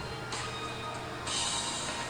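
Background music: a steady low drone with swells of high hiss, one about a third of a second in and a louder one past the middle.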